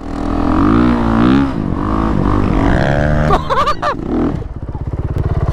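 Honda CRF450RX dirt bike's single-cylinder four-stroke engine revving up and down under throttle in the sand, then dropping to a low, even chugging idle about four and a half seconds in.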